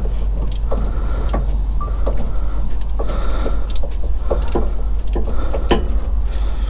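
A hand-operated fluid transfer pump being worked, its strokes repeating about once or twice a second as gear oil is pumped into a manual gearbox, over a steady low rumble.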